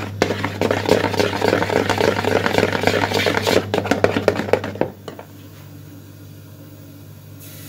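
A metal whisk beating crepe batter in a plastic bowl: a fast, steady run of clicks and scrapes. About five seconds in it stops abruptly, leaving a quiet low hum, and a faint hiss starts near the end.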